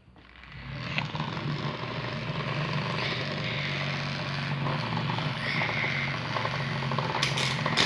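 Small DC motor of a homemade USB fan, salvaged from an old car stereo and run on 5 V USB power, spinning up over about the first second and then running with a steady whirring hum and blade noise. A few sharp clicks near the end.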